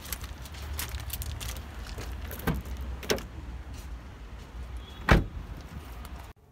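Door of a Nissan hatchback being worked, with a couple of sharp clicks from the latch and handle, then slammed shut with one loud thud about five seconds in, over a steady low rumble.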